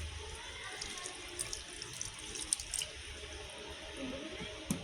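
Faint tap water running into a sink during handwashing, with a few light splashes and clicks and one sharper click near the end.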